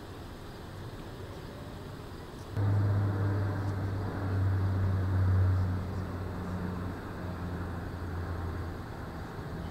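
A motor vehicle's engine running nearby with a low, steady hum. It comes in abruptly about two and a half seconds in and eases off a little after about six seconds, over faint street ambience.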